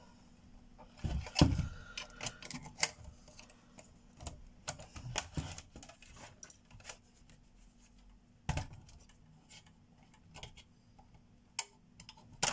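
Irregular plastic clicks and taps from a GeForce GTX 280 graphics card's plastic cooler shroud being pried and worked at with a small tool while the card is handled, with louder knocks about a second and a half in and about eight and a half seconds in.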